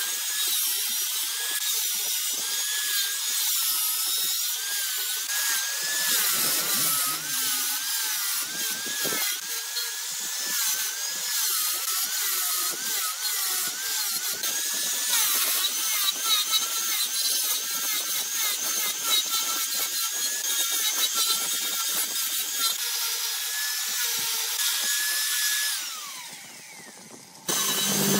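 Angle grinder with a sanding disc running against a wood vase spinning on a lathe: a steady high whine whose pitch wavers up and down as the disc is pressed on and eased off. About two seconds before the end the whine winds down and stops, and a lower hum starts just before the end.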